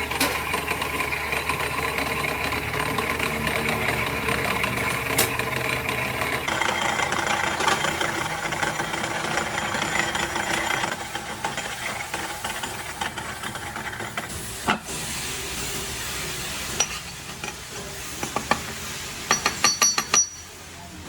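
A workshop machine running steadily with a hissing noise, dropping to a lower level after about eleven seconds; near the end a quick series of sharp clicks.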